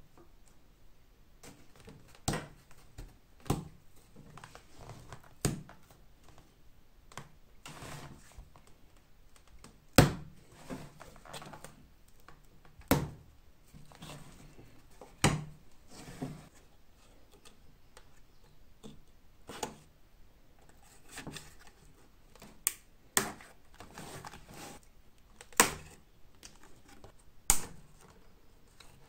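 Scattered sharp knocks and clicks from an antique leather bellows being handled and pried at with a hand tool on a wooden tabletop, with quieter rustling and scraping of the old leather between.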